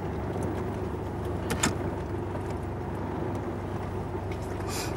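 Four-wheel-drive vehicle's engine running low and steady, with a sharp knock about a second and a half in and a brief hiss near the end.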